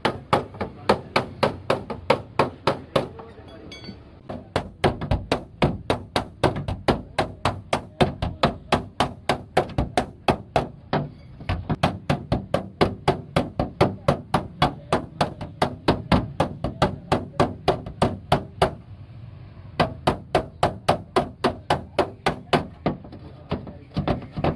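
Hammer striking a car body panel in steady, rapid blows, about three a second, beating out a dent, with short pauses about four seconds in and near the end.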